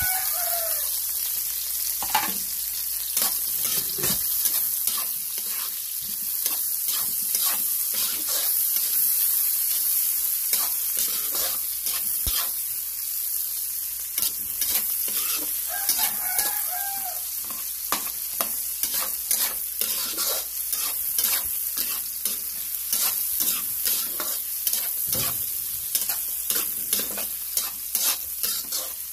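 Food sautéing in a pan: a steady sizzle, with a utensil scraping and tapping against the pan as it is stirred. A rooster crows twice, at the start and about halfway through.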